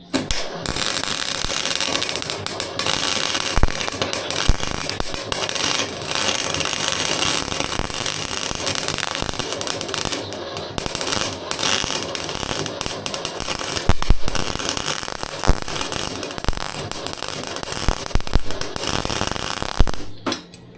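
Arc welder laying a continuous weld, a dense, loud crackling that starts abruptly and cuts off just before twenty-one seconds later.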